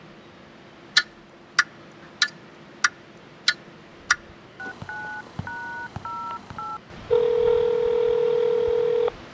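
Six sharp clicks about half a second apart, then a phone keypad's touch-tones beeping out several digits, followed by a steady ring tone on the line lasting about two seconds.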